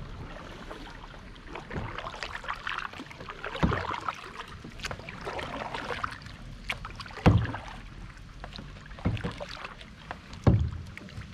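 Kayak paddles splashing through the water in irregular strokes, with dripping and swishing, and a few dull thumps, about four, spread through it.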